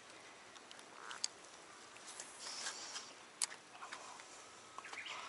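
Faint footsteps and rustling on a wet, grassy and muddy bank, with two sharp light clicks, about a second in and about three and a half seconds in.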